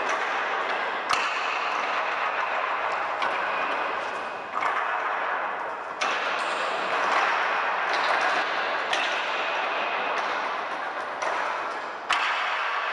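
Soundtrack of a steady hissing wash with sharp, ringing hits every one to three seconds.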